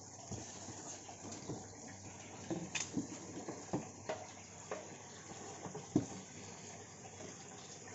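Steady splashing of water pouring into a pond, with scattered light knocks and rustles from a pond pump and its cardboard box being handled; the sharpest knock comes about six seconds in.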